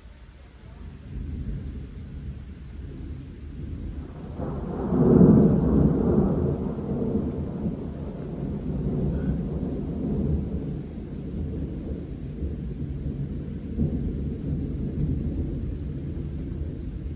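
Thunder rumbling deep and low, building from about a second in to its loudest around five seconds in, then rolling on steadily.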